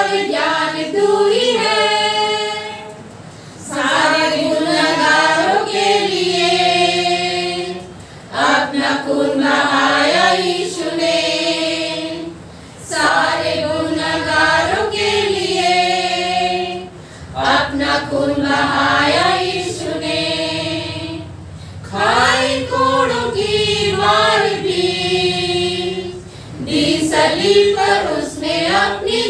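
A group of women singing a hymn together without accompaniment, in phrases of a few seconds with short pauses for breath between them.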